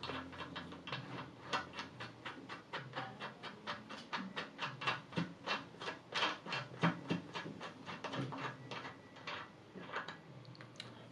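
Small metal clicks and taps from a balance-bike wheel's axle bolt and 17mm nut being unscrewed by hand at the hub, about four clicks a second, uneven in strength.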